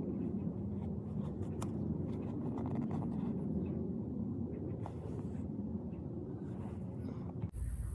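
Steady low rumbling background noise with scattered faint clicks and taps. It changes abruptly near the end, where the background shifts to a different rumble.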